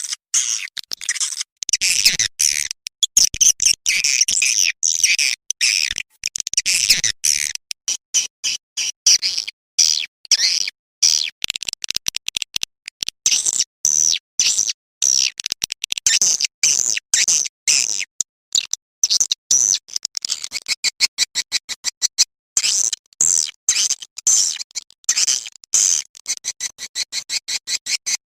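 Edible-nest swiftlet calls: rapid runs of short, high chirps and clicks following one another with brief gaps, a looped lure recording meant to draw swiftlets into a nesting house.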